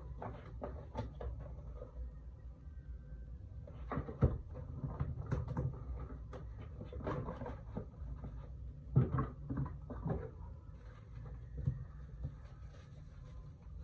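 Hands working open a sealed phone box: irregular scrapes, taps and rustles of cardboard and packaging tape being picked and peeled, with a few sharper knocks about four and nine seconds in.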